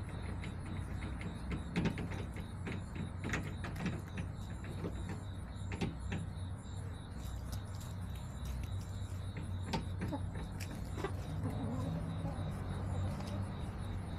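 Backyard hens pecking and scratching, heard as scattered sharp taps and clicks, with soft low clucking near the end, over a steady low rumble.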